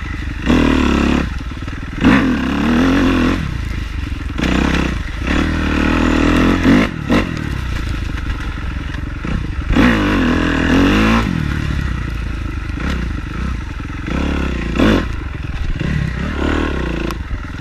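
Dirt bike engine revving hard in repeated bursts, its pitch rising and falling about every two seconds over a steady low running note, as the rider throws roost by spinning the rear wheel in the dirt.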